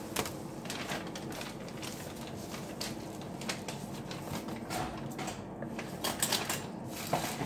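Steady kitchen background noise with a few scattered light clicks and knocks.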